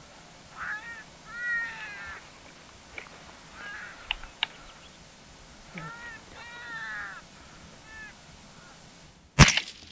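Two runs of short, harsh, caw-like calls repeated several times each, then a single loud rifle shot near the end.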